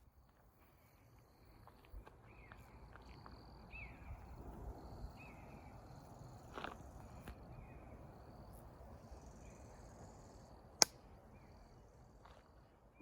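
Faint woodland ambience with a small bird giving short, repeated chirping calls. A few soft knocks and one sharp click near the end.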